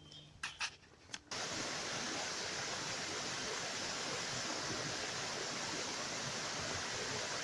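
A few sharp snaps of footsteps on twigs and leaf litter, then, about a second in, the steady rush of a small waterfall pouring over a rock ledge into a stream.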